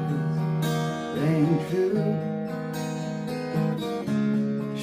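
Acoustic guitar strummed in a steady rhythm, with a man singing over it, his voice wavering and gliding on a held note about a second in.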